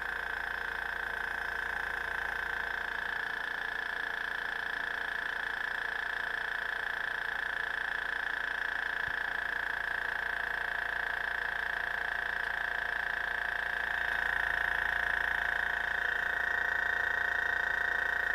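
Floureon AS186 airbrush compressor running steadily, a constant hum with a high steady whine, as it charges its 2-litre tank toward the 4-bar (57 psi) automatic stop. It gets slightly louder about two thirds of the way through. Its owner calls it actually pretty quiet.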